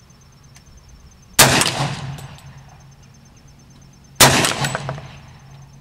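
Two rifle shots about three seconds apart, each a sharp crack followed by a long echoing tail, fired while the shooter adjusts his aim at a target.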